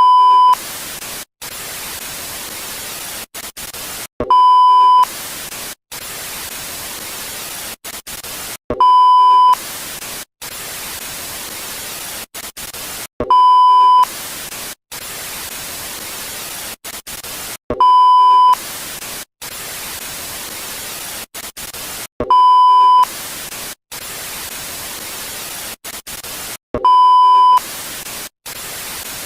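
Analog TV static hiss, broken by many brief dropouts. A loud, steady beep sounds for under a second about every four and a half seconds.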